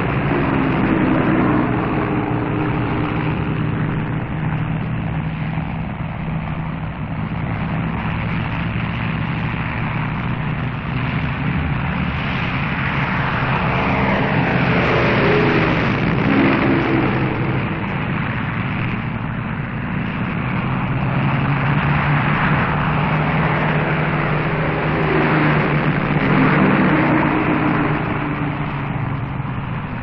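Avro Lancaster bombers' four-engined Rolls-Royce Merlin V12 drone at take-off power. The sound swells loud about halfway through and again near the end, with the engine pitch sliding as the aircraft pass.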